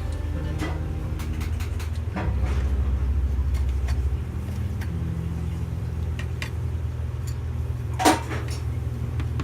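Light clicks and taps of kitchen handling work, with one sharper knock about eight seconds in, over a steady low hum whose low notes shift a couple of times.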